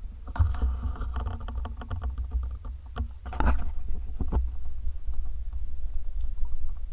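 Crackling and rustling of dry scrub branches, with a denser run of snaps about three to four and a half seconds in, over a steady low rumble on the microphone. A short rasping sound with a pitch comes about half a second in.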